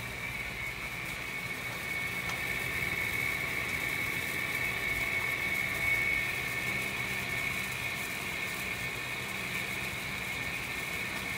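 Blower fan of a homemade chilled-water fan coil unit, taken from a window-type air conditioner, running steadily with a high whine over a low hum.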